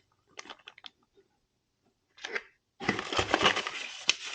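Doorbell kit packaging and parts being handled: a few light clicks and taps, then continuous rough rustling from about three seconds in as the next accessory is taken out of its packaging.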